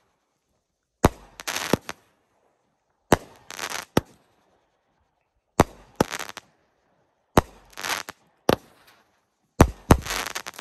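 Football Master consumer firework cake firing shot after shot, about every two seconds. Each shot is a sharp launch report followed a fraction of a second later by the shell breaking overhead. The shots come quicker near the end.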